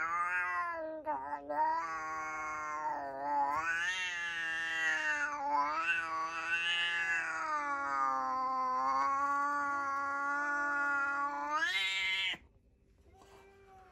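Domestic cat yowling (caterwauling) in one long, drawn-out call that wavers up and down in pitch, broken only briefly a few times, and cuts off suddenly about twelve seconds in. It is a territorial threat aimed at a strange cat on the other side of a glass door.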